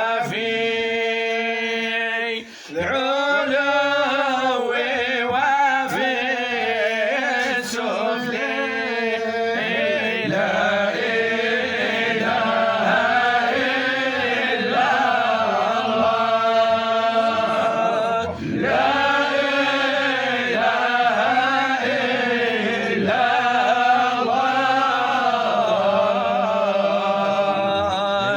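Male voice chanting an Arabic Sufi devotional poem in long, drawn-out melodic lines, with brief pauses for breath about two and a half and eighteen seconds in.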